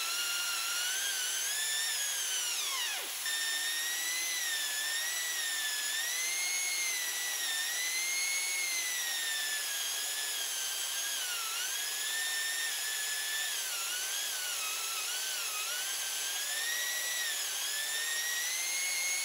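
Homemade waterjet-powered chainsaw: a 60,000 PSI water jet spins the chain's drive shaft with a high whine over the steady hiss of the jet. The whine's pitch wavers and sags as the chain bites into a 2x4. About two to three seconds in it falls steeply, then breaks off and picks back up.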